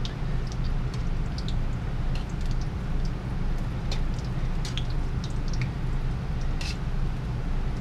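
Pieces of biscuit dough deep-frying in hot oil in a steel wok, sizzling with frequent small crackles and pops over a steady low hum.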